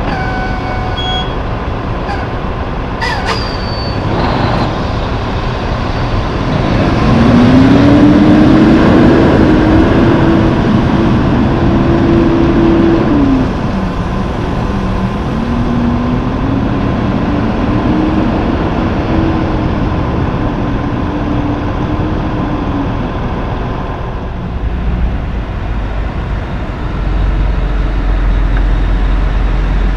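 Diesel tractor-trailer engines pulling away through an intersection. One engine revs up and holds, drops in pitch about halfway through as it shifts gear, then revs up again before fading. A short sharp hiss comes about three seconds in, and a deep low rumble from another truck near the end.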